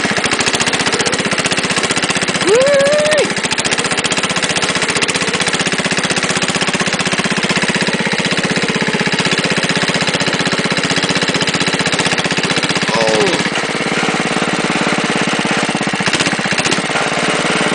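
Wheel Horse garden tractor engine running steadily while under way, with rapid, even firing pulses throughout. About two and a half seconds in, a short tone bends up and back down over the engine, and a briefer one comes near thirteen seconds.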